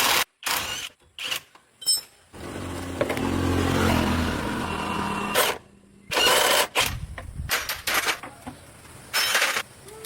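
Short cut-together bursts of workshop noise. First come a few clicks and knocks, then a motor runs steadily for about three seconds and stops abruptly, then there are loud bursts of hissing noise.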